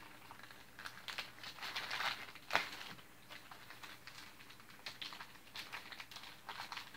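Faint crinkling and rustling of package wrapping being handled and opened, with scattered small clicks and a sharper crackle about two and a half seconds in.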